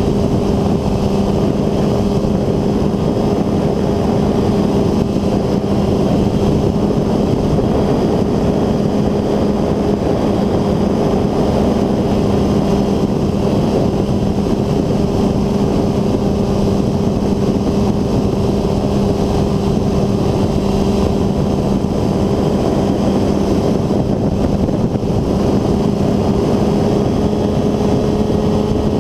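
North Wing Maverick 2 ultralight trike's engine and pusher propeller droning steadily in flight, holding an even pitch throughout.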